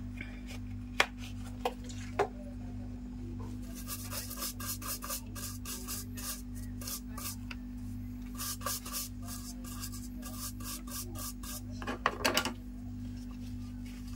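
A small brush scrubs a wet, freshly reballed BGA chip clean in quick back-and-forth strokes, in two runs of a few seconds each with a short burst near the end. A few sharp taps come in the first couple of seconds, over a steady low hum.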